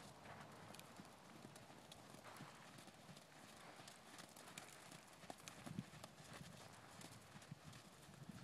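Faint hoofbeats of a ridden horse moving over sand footing: soft, irregular thuds, a few of them louder about six seconds in.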